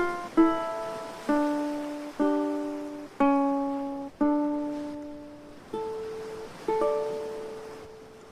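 Solo ukulele plucking a slow melody of single notes, each ringing and dying away. The last note is left to ring and fades out near the end.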